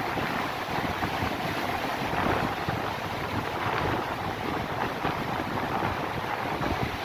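Sea waves washing and breaking on the shore, with strong wind buffeting the microphone in a steady low rumble.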